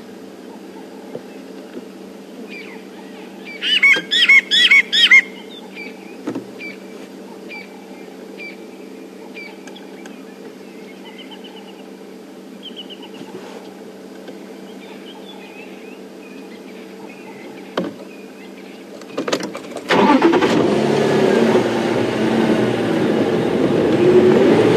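Burchell's glossy starling calling: a burst of loud, wavering notes about four seconds in, then a few softer chirps, over a steady low hum. Near the end a vehicle engine starts and runs as the safari vehicle moves off.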